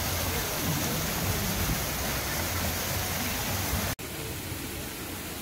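Fountain jets splashing into a canal pool, a steady rush of falling water. It cuts off abruptly about four seconds in and resumes a little quieter.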